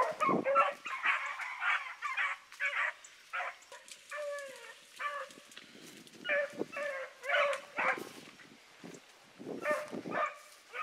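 Rabbit dogs giving tongue while running a rabbit through the brush: a string of short barks and bays from more than one dog, coming in spells with short pauses between.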